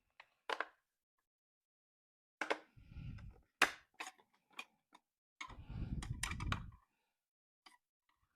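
Scattered sharp clicks and knocks of a hand tool and screws being worked on a Jeep taillight, with two short low rumbles about three and six seconds in.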